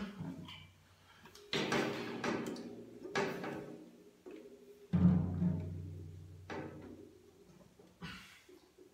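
Drum kit played sparsely: scattered cymbal and drum strikes, each left to ring out, with the loudest a deep drum hit about five seconds in.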